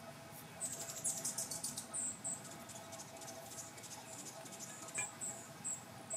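Short high squeaks and sticky crackles from raw canned biscuit dough being pulled apart by hand and pressed into an aluminium cake pan. There is a quick run of them about a second in, a pair near two seconds, and a few more from about five seconds on, with one light tap among them.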